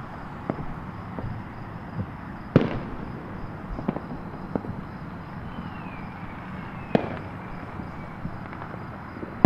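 Distant fireworks going off, with irregular pops and bangs and the two loudest about two and a half seconds and seven seconds in. They sound over a steady background rumble.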